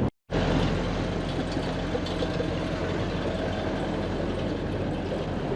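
Gulfstar 40 sailboat's inboard engine running steadily in gear while motor sailing, a low hum over a steady hiss. The sound cuts out completely for a moment right at the start.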